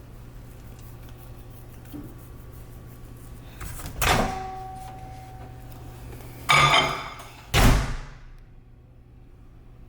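Kitchen clatter over a steady low hum: a sharp metal clank that rings on briefly about four seconds in, a rattle around six and a half seconds, then a heavy door thud, after which the hum cuts out.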